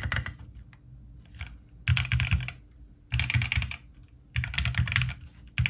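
Typing sound test on a Bakeneko 65 mechanical keyboard fitted with factory-lubed Gateron Oil King linear switches: quick runs of keystrokes clacking in bursts of about half a second to a second, with short pauses between them.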